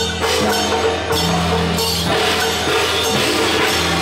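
Taiwanese temple-procession percussion music: hand gong and cymbal clashes repeating over steady held low tones.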